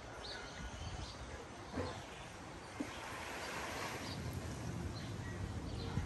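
Shallow sea water gently lapping and washing at a beach, with a swell of wash about three to four seconds in, a few light clicks, and faint bird chirps.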